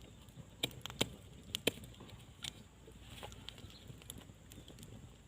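A handful of sharp, separate clicks and knocks, the loudest two close together near the middle of the first two seconds, over faint outdoor background.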